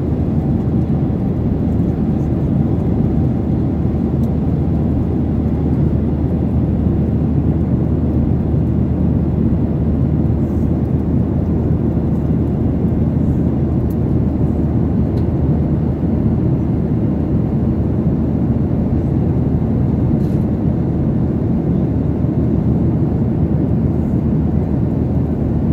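Jet airliner cabin noise: a loud, steady low rumble of engines and rushing air.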